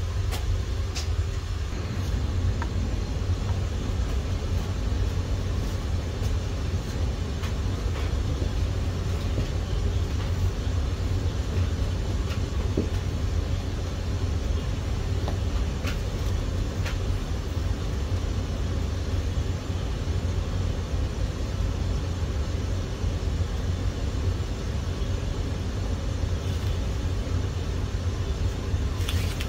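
Steady low rumble, with a few faint light clicks scattered through it.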